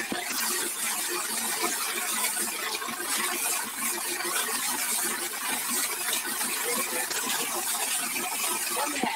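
Steady hiss of a jet of water from a hose spraying and splashing over a tractor's body and wheels.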